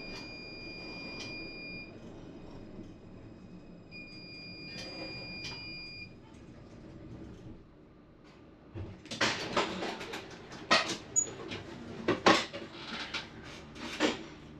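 Tram giving a high electronic beep twice, each lasting about two seconds. A few seconds later comes a run of loud, irregular clunks and clatter.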